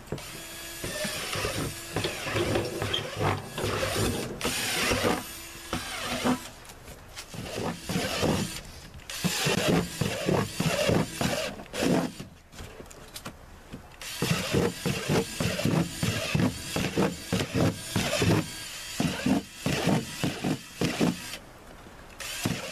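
Cordless drill boring a series of holes through the thin plastic wall of a 32-gallon trash can, perforating it for use as a sump pit liner. The drill runs in bursts of about a second with short pauses between holes, and stops for about two seconds midway.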